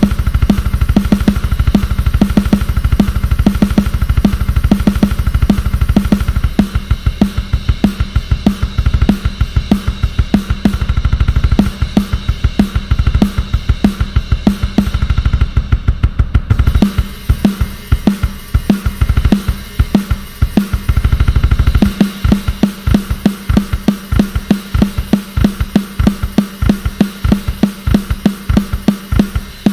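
Sampled acoustic drum kit from Ingram Audio's Drum Daddy Kontakt library playing a steady groove: kick, snare, hi-hat and cymbals. The pattern changes about 16 seconds in, when the cymbal shimmer drops out, and again about 22 seconds in, when the deep low end thins.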